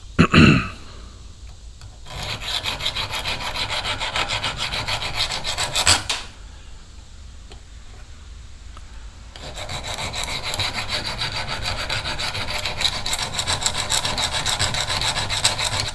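Small hand file rasping rapidly back and forth across a steel broadhead blade, sharpening its edge, in two long runs of quick strokes with a pause of a few seconds between them. A brief loud falling squeal comes right at the start.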